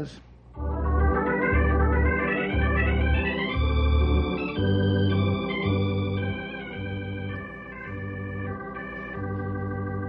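Organ music bridge: a climbing run of notes over a bass note repeated about once a second, then held chords that grow somewhat quieter in the second half.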